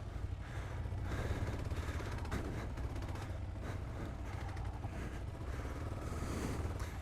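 Dual-sport motorcycle engine running steadily, a low rapid pulsing rumble with road and wind noise.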